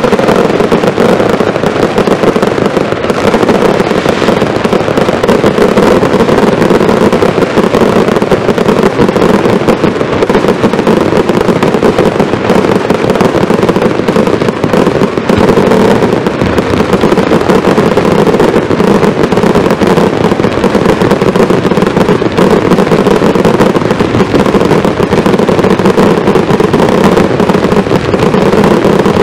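Zena fireworks firing in a dense, unbroken barrage: aerial shell bursts and rows of ground-fired cakes going off so close together that the bangs run into one continuous, very loud din with no pauses.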